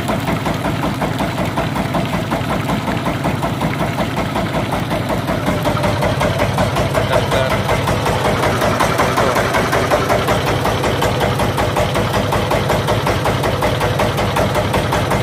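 Wooden riverboat's engine running steadily under way, a loud, even, fast-pulsing drone.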